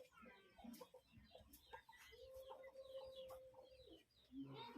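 Faint domestic chickens calling in the background, including one drawn-out call lasting about two seconds in the middle, with small bird chirps scattered around it.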